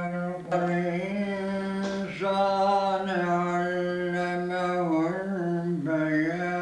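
A man's solo voice chanting Quran recitation unaccompanied, holding long drawn-out notes with slow melodic turns, with a brief pause for breath about half a second in and a new phrase starting near the end.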